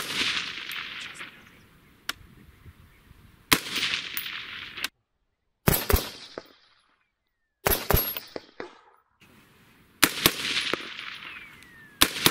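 Suppressed AR-15 carbine in .223 firing single shots, about six of them a second or two apart. Each is a sharp report followed by about a second of echo dying away.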